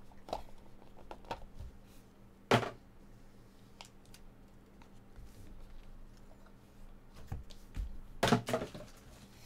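Handling of a cardboard trading-card box and its cased cards: several knocks and clicks as the lid comes off and pieces are set down on the table, the loudest about two and a half seconds in and a quick cluster near the end.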